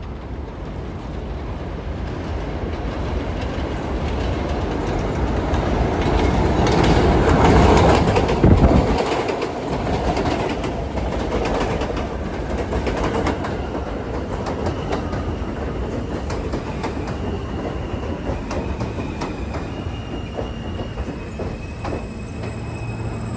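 A New York City subway train comes into an elevated station and passes close by, its rumble and wheel clatter on the steel structure swelling to a peak about eight seconds in. After that it runs on more steadily, with thin high whining tones coming in during the second half.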